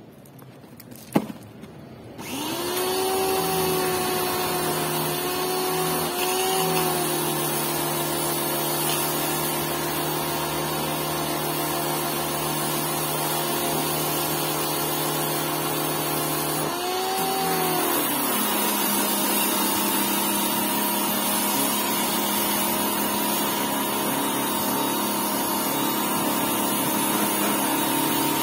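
Small electric pressure washer switched on with a click, then its motor and pump running steadily under the hiss of the water jet. The pitch shifts briefly twice, and settles a little lower in the second half.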